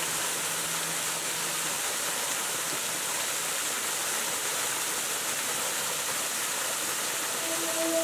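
Steady rushing and splashing of a mountain waterfall pouring down a rock face. A held musical note fades out in the first two seconds, and music comes back in near the end.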